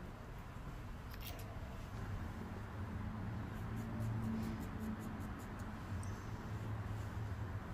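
Barber's shears snipping wet hair in a quick run of small cuts, about four a second, over a low steady hum.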